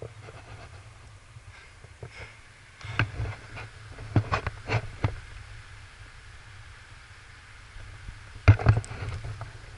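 Wind rumbling on a body-worn camera's microphone at the top of a rock climb, with a few sharp knocks and scrapes: one about three seconds in, a cluster around four to five seconds, and the loudest pair near the end.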